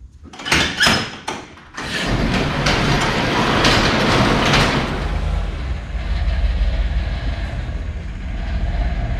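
A sectional garage door clacks as it is unlatched, then is pushed up by hand with its rollers rattling loudly along the metal tracks for about three seconds. Under it and after it, a Chevrolet Silverado pickup's engine runs with a steady low rumble.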